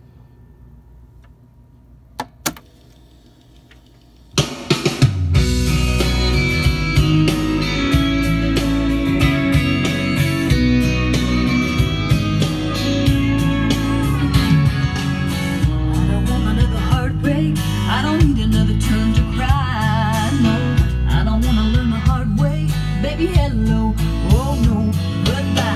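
Akai 1722W reel-to-reel tape recorder playing back a recorded song through its built-in speakers. Faint tape hiss, then two sharp clicks a little over two seconds in, then music with guitar, drums and a voice starts about four seconds in and plays on loudly.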